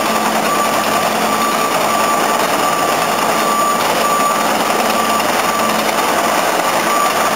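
A works vehicle's reversing alarm beeping over and over, over the steady engine and tyre noise of slow street traffic.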